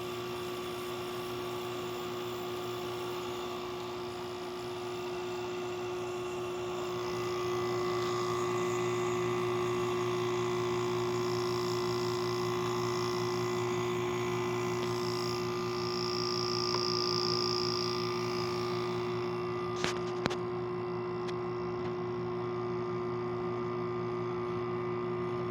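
2016 LG 8,000 BTU portable air conditioner running in cooling mode, a steady hum from its compressor and fan, with its rear fan stuck. A couple of sharp clicks sound about twenty seconds in.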